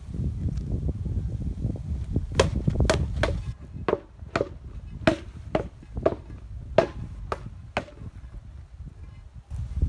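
A rattan practice sword striking a pell of stacked rubber tyres: about ten sharp blows in quick, uneven succession over the middle of the clip. A low rumble comes before the blows and returns near the end.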